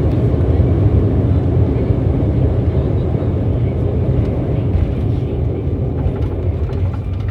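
Steady low rumble of an Embraer 195 jet airliner, easing off slightly near the end.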